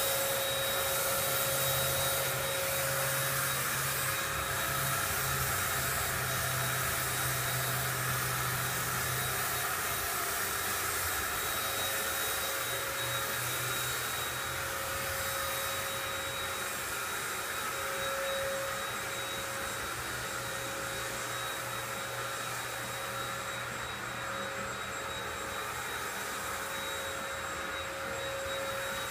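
Electric HVLP paint sprayer's turbine running steadily, a rushing blower noise with a steady high whine, feeding air to the spray gun for Plasti Dip. A lower hum under it fades about ten seconds in.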